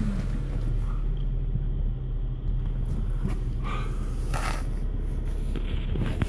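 Off-road vehicle's engine running at low speed, a steady low rumble heard from inside the cabin while driving through mud, with a few brief scrapes around the middle.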